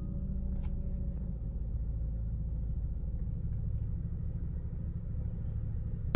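Steady low rumble of a Kia Stinger heard from inside its cabin, the car's engine and road noise running evenly.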